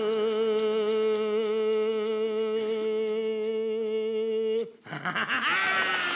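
A man's voice holding one long final sung note with vibrato, over light, quick guitar strums about four times a second; the note cuts off suddenly after about four and a half seconds. Audience applause and cheering break out at once.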